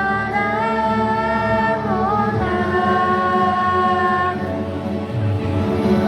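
A children's choir singing, holding long sustained notes that change pitch every second or two, with a brief dip about four and a half seconds in.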